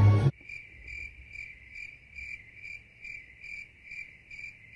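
Crickets chirping as an inserted sound effect: a high, steady chirp pulsing about four times a second, cut in cleanly over silence. It is the familiar 'crickets' gag for an awkward, uneventful wait.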